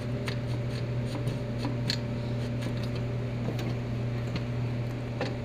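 Scattered light metallic clicks and rubbing as the shift collar is twisted and worked on the steering column, still stuck on the column. A steady hum runs underneath.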